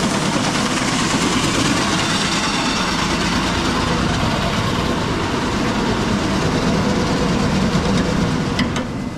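Grain intake auger running, carrying grain from the trailer pit up into the bottom of the batch grain dryer: a steady machine hum under a continuous hiss of moving grain, with a couple of light clicks near the end.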